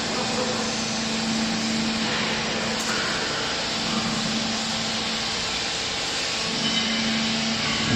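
Hydraulic baling press running: a steady machine hum over even mechanical noise from its motor and pump.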